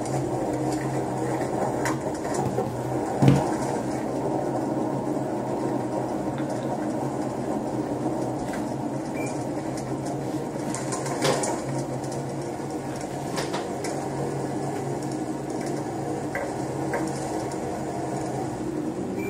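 Steady engine and road noise heard inside a police patrol car, with one thump about three seconds in and a few faint clicks later.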